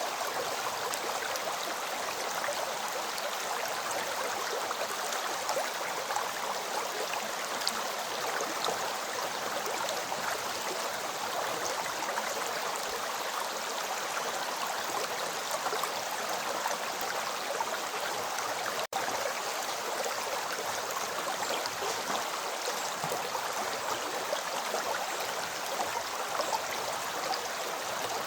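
River water flowing over a streambed: a steady, even rush of water with small gurgles. It breaks for a split second about two-thirds of the way through.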